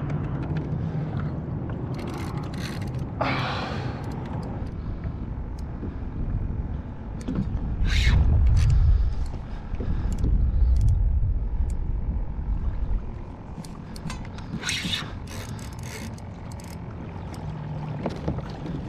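A Shimano Stradic 4000 spinning reel being cranked against a heavy fish, with scattered clicks and rattles of reel and rod handling. Low rumbling buffets, loudest about eight to twelve seconds in, run under it.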